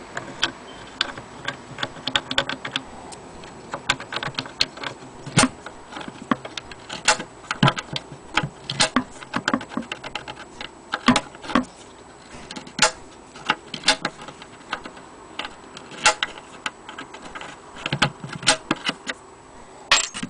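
Irregular small metal clicks and clinks, with light wooden knocks, as fingers work a small metal hook latch on a wooden case.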